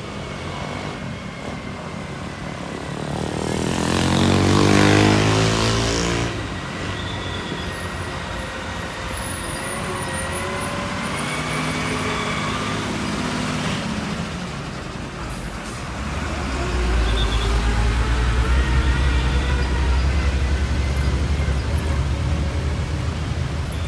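Heavy trucks passing on a road. One goes by close about four to six seconds in, its engine note falling as it passes. Another engine rises and fades around twelve seconds, and a deep, louder engine rumble sets in from about sixteen seconds on.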